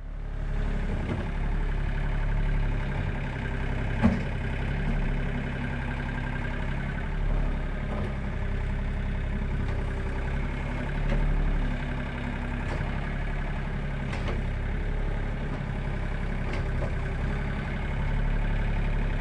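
John Deere compact diesel tractor engine running steadily while it works its front loader in snow. A single sharp knock comes about four seconds in, with a few fainter clicks later on.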